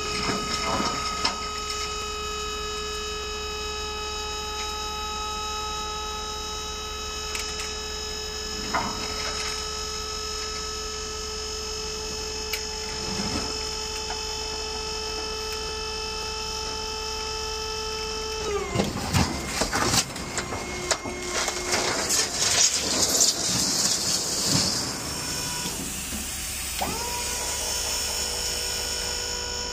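International 4300 truck running flat out with a steady high drivetrain whine. About two-thirds of the way in, the whine drops in pitch amid a run of rattles and knocks, then climbs back to a steady pitch near the end.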